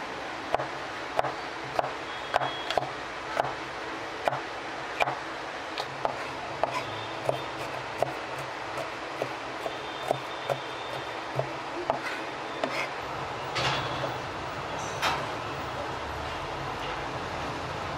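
Large kitchen knife chopping vegetables on a plastic cutting board: steady knocks a little under two a second, thinning out to a few scattered knocks about twelve seconds in, over steady background noise.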